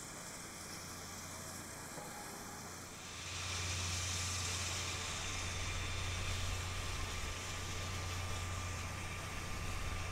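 C57 steam locomotive standing at a station platform: a steady hiss of steam over a low hum, with no exhaust beats. It gets louder about three seconds in, and the hiss brightens.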